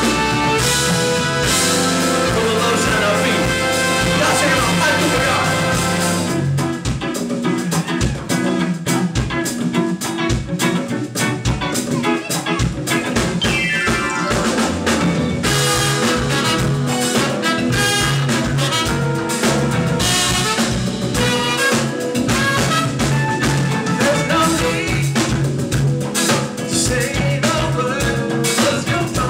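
Live band music with a drum kit. About six seconds in the sustained chords and bass drop away, leaving mostly sharp drum hits, and the full band comes back in about halfway through.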